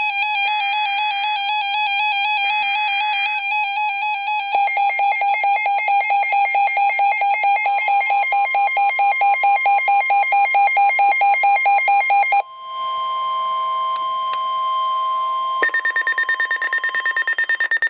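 NOAA Weather Radio alert tones. Two short buzzing SAME header data bursts sound under a warbling electronic alarm, which then turns to rapid beeping, and the steady 1050 Hz warning alarm tone comes in about eight seconds in. Near the end the beeping stops, hiss comes up under the tone, and a second, faster pulsing alarm sounds for the last couple of seconds.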